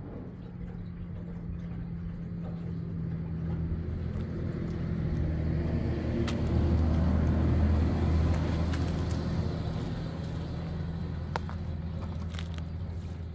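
A motor vehicle's engine running as it passes, a low hum that grows louder to about two-thirds of the way through and then fades. A few faint knocks sound over it.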